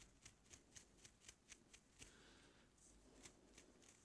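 Plastic tail comb and long acrylic nails parting and picking through hair: a quiet run of crisp ticks, about four a second, then a softer scratchy stretch and a couple more ticks near the end.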